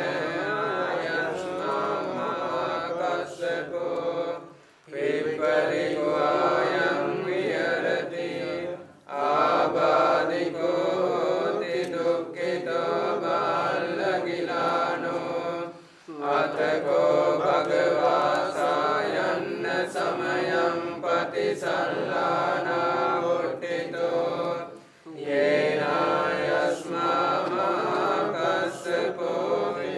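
Group of Sri Lankan Theravada Buddhist monks chanting Pali verses together in a steady recitation, in long phrases with four brief breaks for breath.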